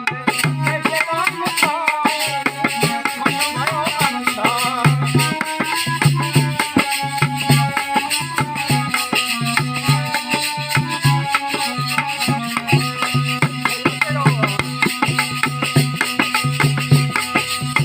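Music with a steady drum beat, hand percussion and rattles under a melody line.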